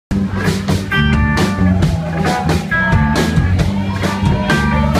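A live rock band plays electric guitar, bass guitar and a drum kit, with a steady beat of drum hits under the guitar notes. The music cuts in abruptly at the very start.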